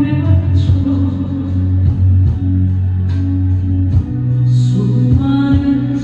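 A woman singing a Korean gospel praise song, with instrumental accompaniment under the voice; the low accompaniment notes change about four seconds in.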